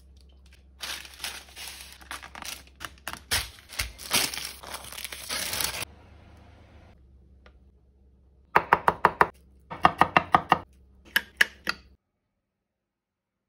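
Parchment (baking) paper crinkling and rustling as it is folded around breaded smelt. Later come three quick runs of sharp, crisp crackles.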